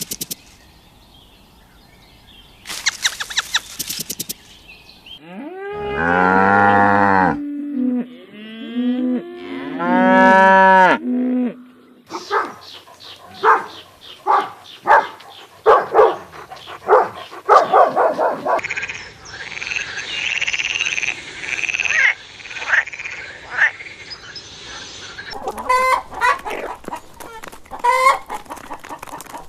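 A cow mooing in two long calls, followed by a run of shorter repeated animal calls.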